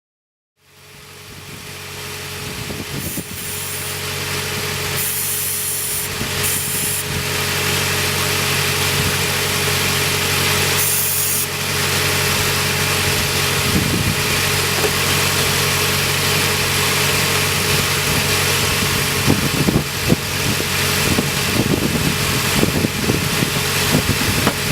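Car engine idling steadily under the open hood, with a few short bursts of high hiss and irregular clicks toward the end.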